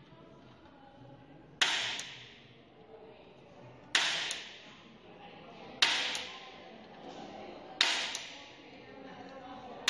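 Impact punch-down tool seating the wires of a UTP cable into a patch panel: four sharp spring-loaded snaps about two seconds apart, each with a quick second click and a short ring-off, and another snap starting at the very end.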